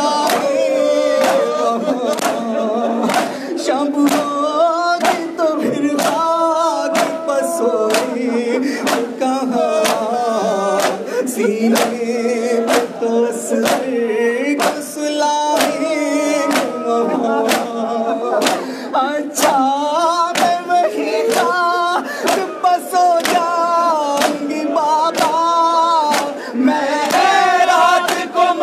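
A group of men chant a noha lament in unison, accompanied by a steady beat of loud open-hand chest-beating (matam) slaps, about three every two seconds.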